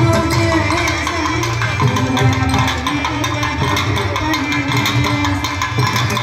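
South Indian temple procession music: a nadaswaram holds long reed notes that step from pitch to pitch, over fast, continuous thavil drumming.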